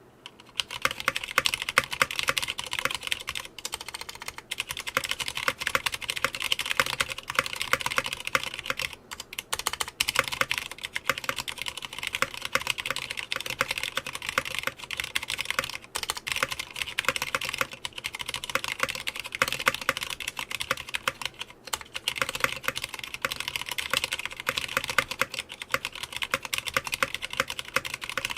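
Continuous fast typing on a Clueboard 66% mechanical keyboard with stock Cherry MX Red linear switches: a dense run of keystroke clacks, broken by a few short pauses.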